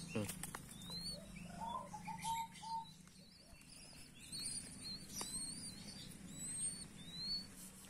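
Zebra dove giving a short run of soft cooing notes about two seconds in, while small birds chirp in thin, high glides throughout. The sound is faint.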